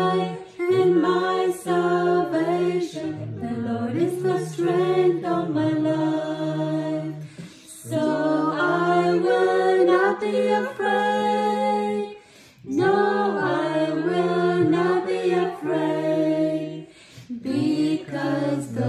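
A woman singing a worship song unaccompanied, in long held phrases with short breaks for breath.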